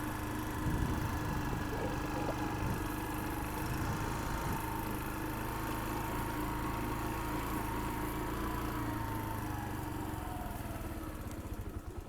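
A motor or engine running steadily with a constant whine, fading away at the very end.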